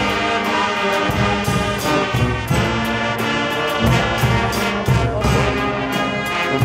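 Guggenmusik carnival band playing loudly: trumpets, trombones and sousaphones sound sustained brass chords over drums and clashed cymbals, which strike frequently.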